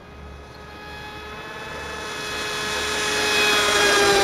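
Turnigy 3656 2600kv brushless motor of a Delta Force Mini Sniper RC boat, running on a 3s lipo, whining at a steady high pitch at speed. It grows steadily louder as the boat approaches and is loudest near the end.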